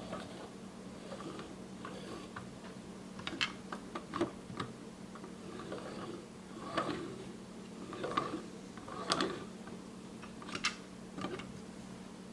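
Toy road roller being handled: scattered light clicks and taps, about ten of them, over a steady low hum.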